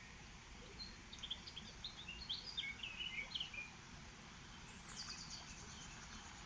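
A songbird sings a quick phrase of short, high chirps, then a fast trill stepping down in pitch near the end. Under it runs the steady rush of river water.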